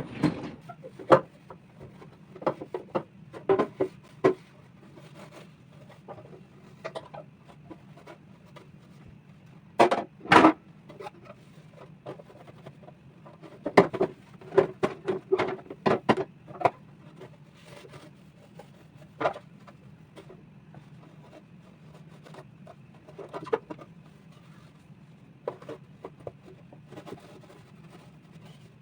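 Containers and produce being handled while organising a refrigerator: irregular clicks, knocks and clatters as things are set down and moved, with a steady low hum underneath.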